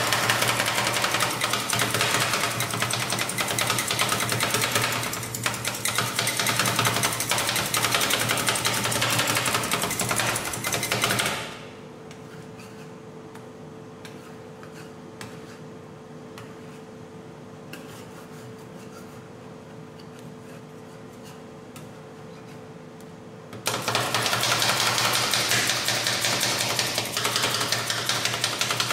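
Two steel spatulas chopping crushed potato chips into ice cream base on a frozen steel plate: a fast clatter of blade strikes on metal. The chopping stops for about twelve seconds in the middle, leaving a faint steady hum, then starts again.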